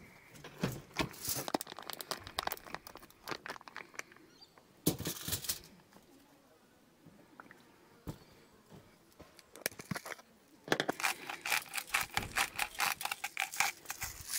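Plastic meat packaging crinkling and rustling as the pork ribs are cut out and laid on foil. Near the end comes about three seconds of rapid, even clicking from a salt, pepper and garlic grinder being twisted over the meat.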